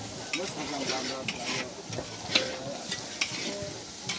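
A long wooden paddle stirring a large metal cooking pot, knocking sharply against it about once a second, over the sizzle of food frying in a wok. People talk in the background.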